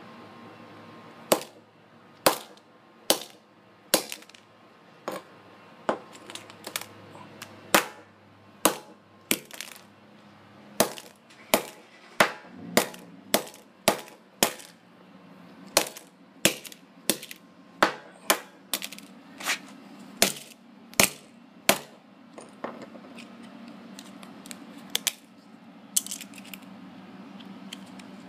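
Claw hammer striking a Nokia flip phone on a concrete floor, about two dozen sharp blows at roughly one a second, cracking the phone's casing. The blows stop about three-quarters of the way through, leaving only a few light clicks and rattles of the broken phone.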